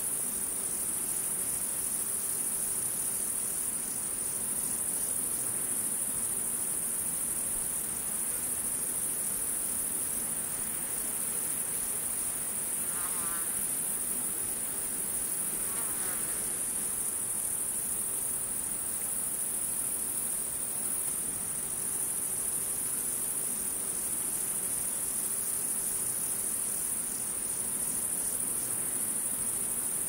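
Chorus of crickets and other insects: a steady, dense high-pitched trilling that runs on without a break.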